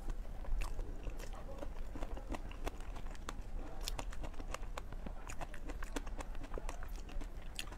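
Close-miked mouth sounds of someone eating soft cream cake: many small, irregular wet clicks and smacks of chewing, with a metal spoon scraping the plate now and then.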